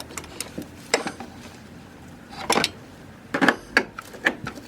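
Metal hand tools clinking and knocking against metal, five or so separate irregular strikes, during spark plug work on a car engine.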